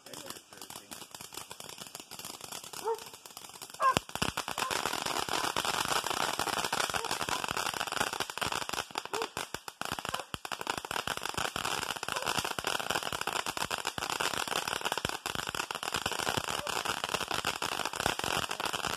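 Ground fountain firework spraying sparks: a quieter, sparser crackle at first, then a sharp pop about four seconds in, after which dense rapid crackling goes on steadily.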